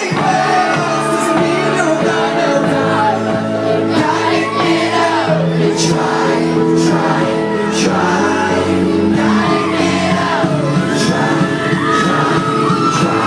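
Live pop song with sung vocals over amplified music, and the crowd shouting and whooping along.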